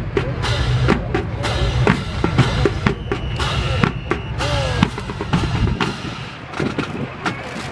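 Marching drum corps playing snare and bass drums, a run of sharp drum strikes under a steady low hum that fades out near the end.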